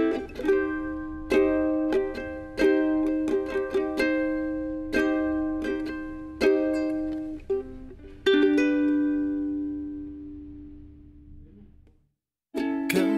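Music: chords strummed on a plucked string instrument, each one ringing and decaying. The last chord rings out and fades away to silence about twelve seconds in. A fuller, louder piece of music starts just before the end.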